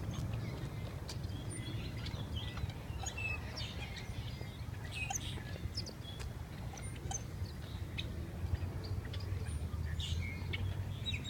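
Birds calling, with many short scattered chirps and a quick run of short calls near the end, over a steady low rumble.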